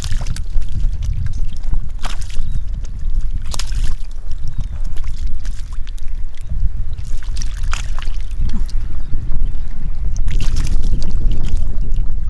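Hands splashing and sloshing in shallow muddy water as fish are grabbed, a few separate splashes spread through, over a steady low rumble of wind on the microphone.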